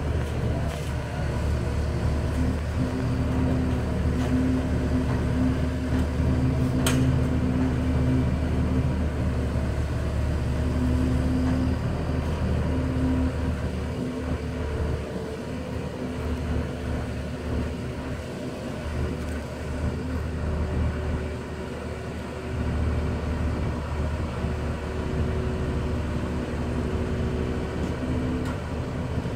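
Aircraft tow tractor's engine running steadily as it pulls a cradle-mounted jet engine off a trailer, its note swelling and easing a little with the load. A single sharp click about seven seconds in.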